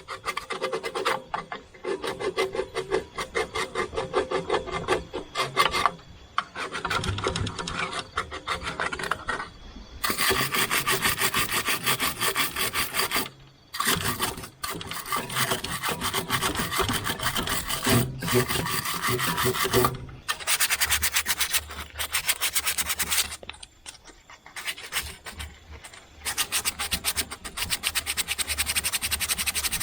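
Hand file scraping over the copper radiator tank to knock off paint and old solder, in runs of rapid strokes lasting a few seconds with short pauses between.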